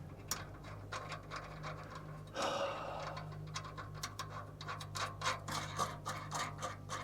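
Irregular small clicks and scrapes of hand tools and metal parts being worked at an exhaust pipe joint, with a short breathy rush about two and a half seconds in, over a steady low hum.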